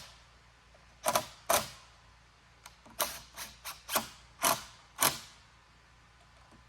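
About eight sharp knocks or clicks, unevenly spaced, between about one and five seconds in.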